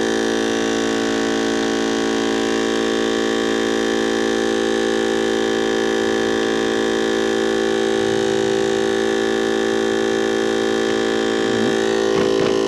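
Steady, unchanging hum made of many pitches sounding at once, like an electrical or motor drone.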